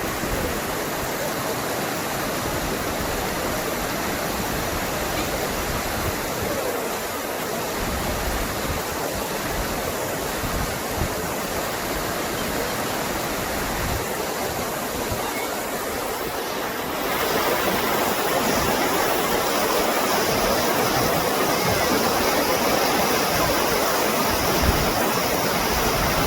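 Rushing river water, a steady noisy flow that becomes louder and brighter about two-thirds of the way through.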